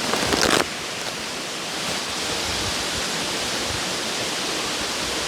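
Waterfall pounding with a steady, even rush of water, with a brief louder rush in the first half-second.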